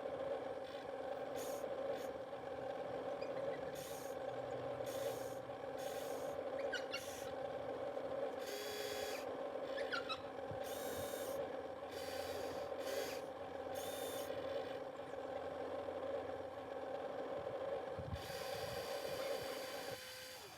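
Remote-control model excavator's motors running with a steady whine, with short higher squeaks and buzzes from its moving parts; the whine stops near the end.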